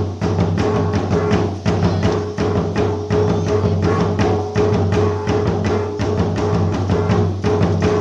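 Music played on drums and wooden percussion, the strokes keeping a steady beat over sustained low tones.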